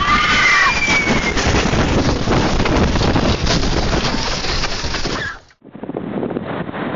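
Tornado winds and flying debris battering a car, heard from inside the cabin: a loud, dense rushing noise, with a high falling wail over it in the first second or so. After a sudden cut about five and a half seconds in, a steady wind buffets the microphone.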